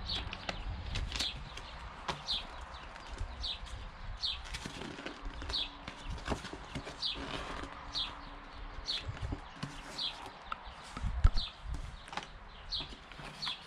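Paper and cardboard being handled: pages of a manual and leaflets rustling and a cardboard box being moved and opened on a wooden table, with small knocks and a louder thump about eleven seconds in. A bird chirps in the background, a short high call about once a second.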